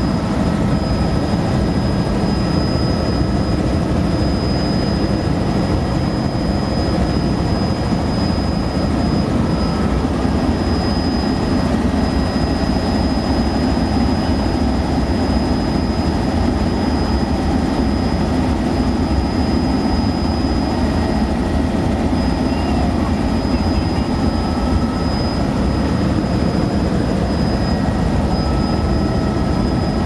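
Helicopter's engine and rotors running steadily in cruising flight, heard inside the passenger cabin: a loud, unbroken din with a thin high whine over it.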